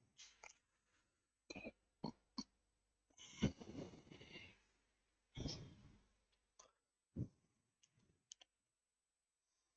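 Faint, scattered taps and clicks of a pen on a drawing board, with a few short breathy, cough-like noises, the longest about three and a half seconds in.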